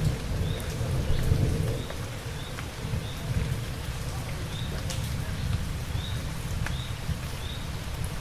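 Steady rain with drops ticking on a surface, over thunder rumbling low that is heaviest in the first couple of seconds and then eases off.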